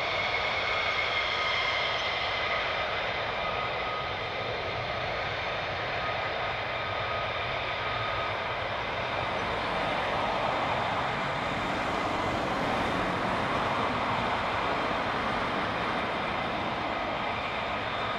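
F-15 fighter jets taxiing on their twin jet engines at low power: a steady jet whine with high whistling tones that fade out about halfway through, over a constant rush of engine noise.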